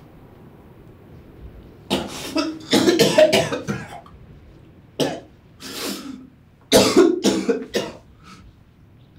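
A man coughing hard in several fits: a run of coughs from about two seconds in, two more around five and six seconds, and a last run just before eight seconds.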